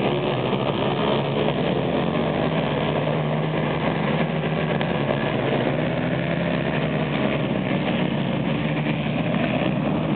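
A pack of racing ATV (quad) engines running together around a dirt flat track: a steady, loud mix of overlapping engine notes.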